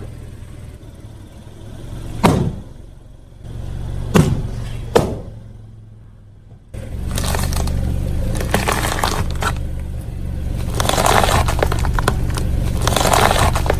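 Car tyres rolling over and crushing brittle objects, with the car's engine humming low and steady. Sharp cracks come about two, four and five seconds in. From about seven seconds in there is a long run of dense crunching and crackling.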